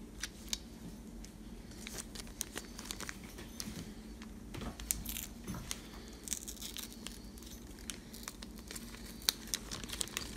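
Clear plastic bag and foil wrapping crinkling and tearing as a sealed phone battery is unwrapped by hand, with many small, irregular crackles.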